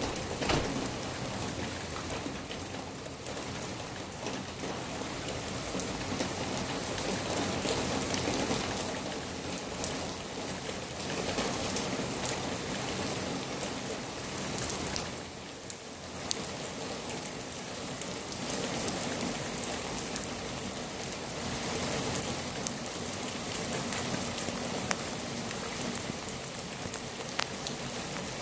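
Steady rain falling in a storm, swelling and easing slightly, with scattered sharp ticks of drops striking something close by.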